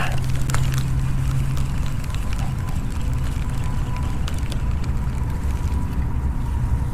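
Wind rumbling on the microphone, a steady low buffeting, with a few faint clicks.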